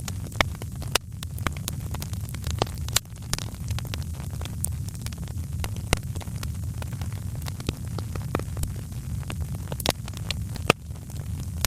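Wood fire burning in a fireplace: a steady low rumble with sharp crackles and pops at irregular intervals, a few of them much louder snaps.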